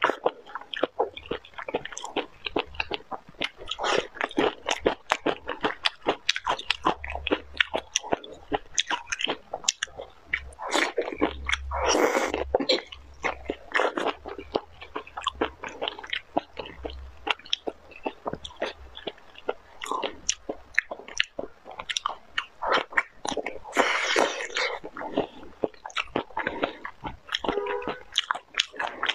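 A person chewing and biting sauce-marinated shrimp in chili sauce: a dense run of small, irregular wet clicks and crunches, with a few louder, longer mouth noises about twelve seconds in and again near twenty-four seconds.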